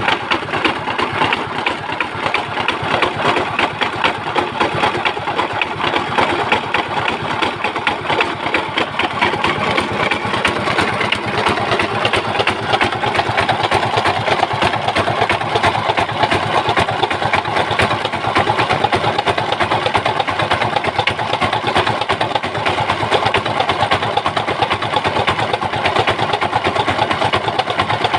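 Old West German Hatz 790 single-cylinder diesel engine running steadily, its firing strokes a fast, even chugging.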